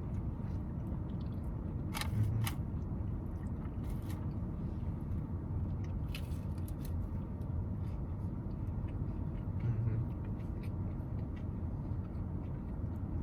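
Steady low rumble of a car, heard from inside the cabin, with a few small clicks and scrapes from handling food and eating, the most noticeable about two seconds in.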